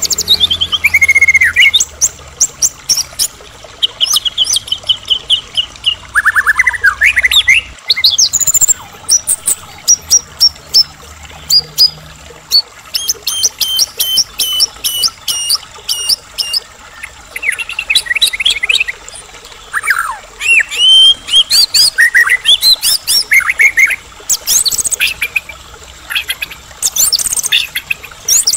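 Medan-type white-rumped shama (murai batu) singing vigorously, a long varied song full of borrowed phrases (isian). It changes phrase every second or two: clear whistles, quick rising and falling sweeps, fast runs of repeated notes and sharp clicks.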